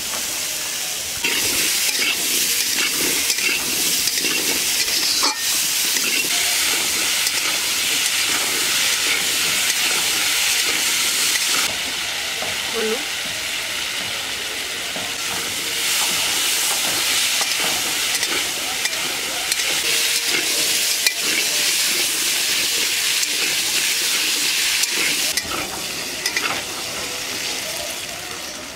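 Potato chunks sizzling as they fry in hot oil in a large metal kadai, with a spatula stirring and scraping against the pan. The sizzle eases for a few seconds near the middle and then picks up again.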